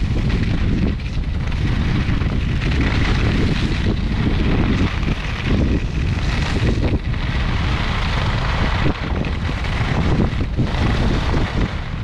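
Wind buffeting the microphone of a camera carried downhill on skis, a heavy steady rumble, with the hiss and scrape of skis on groomed snow swelling and fading with each turn.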